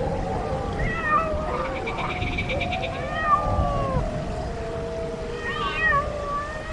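Several wailing, meow-like animal calls overlapping one another, each rising and falling in pitch, with a fast rattling trill about two seconds in.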